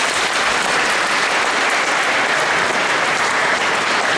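Audience in a church applauding, a dense, steady clapping.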